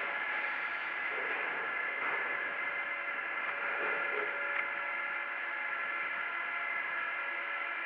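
MF67 Paris Métro train at the platform, giving a steady whine of several held tones over a hiss. The pitch does not rise or fall.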